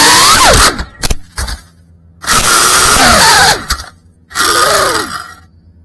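FPV quadcopter's brushless motors and propellers, heard from the drone's onboard camera, whining as the throttle is punched and cut. The pitch climbs and falls in three surges, with sudden drops to near quiet between them.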